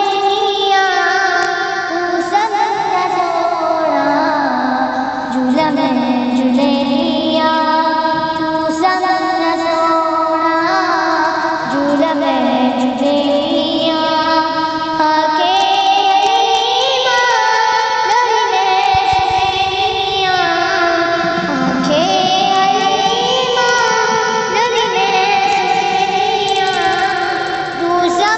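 A naat, an Islamic devotional song, sung in a high voice: long held notes that bend and glide from pitch to pitch.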